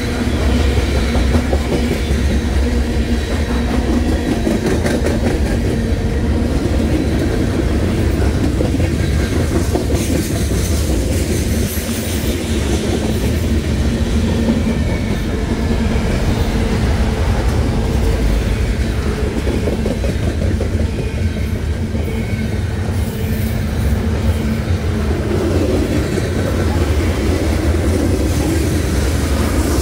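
Freight cars of a manifest train rolling past close by: a steady, loud rumble of steel wheels on rail with a clickety-clack of wheel clicks.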